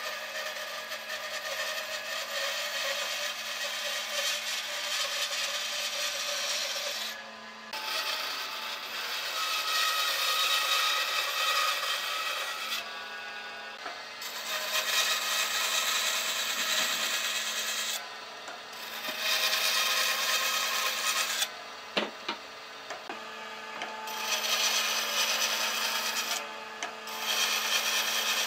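Bandsaw cutting wood: the blade's rasping cut runs in several long passes that stop and start again as pieces are fed through, over the steady hum of the saw's motor. A few sharp knocks come about two-thirds of the way through.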